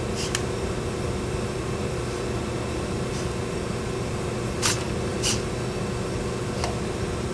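Short whirs of the DARwIn-OP humanoid robot's Dynamixel joint servos as its body is rotated sideways: once just after the start, twice close together around the middle, and once near the end, over a steady background hum.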